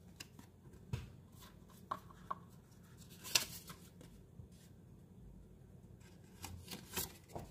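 Trading cards and a small paper note being picked out of a cardboard box and handled: faint rustles and scattered light taps, with a louder paper rustle about three and a half seconds in and a few more near the end.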